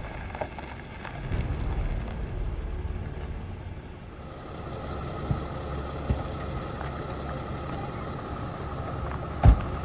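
An ambulance van's engine running as it pulls up on the gravel track, then idling. A single loud thump near the end.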